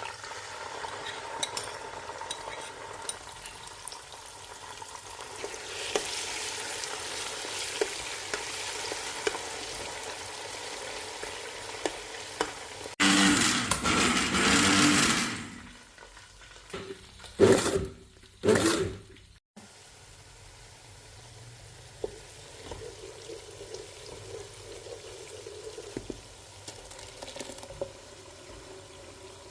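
Food frying in a pan with a steady sizzle and the scrape and clatter of stirring. It grows loud for a couple of seconds about halfway through, with two short loud bursts just after.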